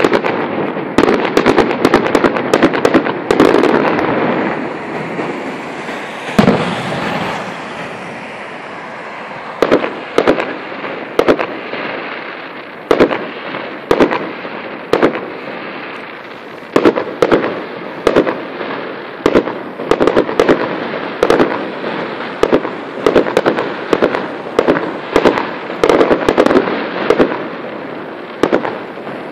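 Aerial fireworks shells bursting with sharp bangs. A dense run of bangs comes first, then a lull with a single bang about six seconds in, then repeated bangs about one or two a second.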